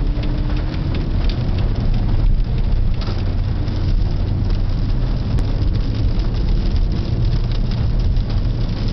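Rain and wet-road noise heard inside a moving car's cabin: a steady hiss full of small drop ticks over the low hum of the engine and tyres.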